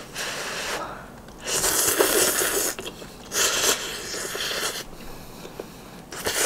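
A person slurping instant ramen noodles off chopsticks: two long, loud slurps, the first about one and a half seconds in and the second about three and a half seconds in.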